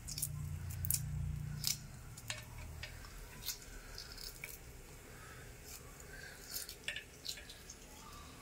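Shell being peeled by hand off a hard-boiled hen egg: irregular small crackles and clicks as bits of shell crack and snap away. A low rumble fades out after about two seconds.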